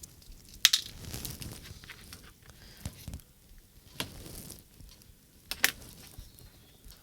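Hand tools and a small plastic radio transmitter being handled during disassembly: four sharp clicks and taps, the loudest near the start, with soft scraping between.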